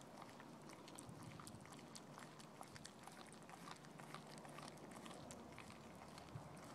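Faint sound of a dog chewing a chunk of raw green tripe: many small irregular clicks and crunches from its teeth and jaws.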